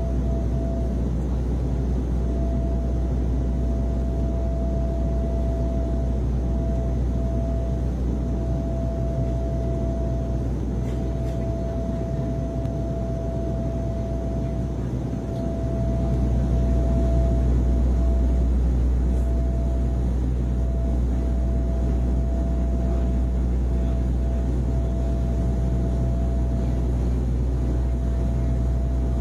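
Steady drone of an airliner cabin in flight: a continuous low rumble with a steady mid-pitched hum over it, growing slightly louder about halfway through.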